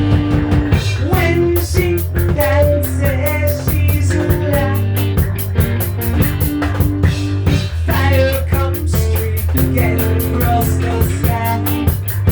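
Rock music with a steady drum-kit beat, sustained bass notes and a melodic line above.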